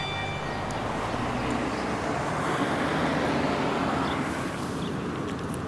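Steady rush of road traffic, swelling a little in the middle as if a car passes, then easing off.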